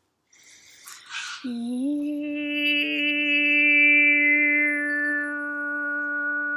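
A woman's polyphonic overtone singing. After a breath, a steady low vocal drone scoops up into pitch and holds, while a whistle-like overtone above it glides slowly downward. Sung in the open air, the overtone is, as she puts it, not as potent and doesn't really filter as well.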